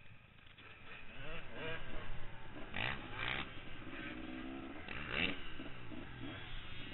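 Off-road motorcycle engines revving, their pitch rising and falling, with a few short, louder bursts of throttle.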